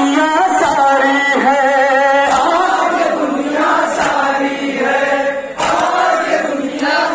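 Men's voices chanting a noha (Urdu mourning lament) together, with a sharp slap of hands striking chests (matam) about every second and a half.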